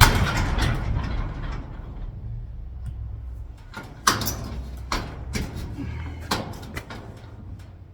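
Metal garage door rattling and knocking as a socket is used to push the door lock's push pin into place. A loud rattling clank at the start, then a few sharp knocks about a second apart.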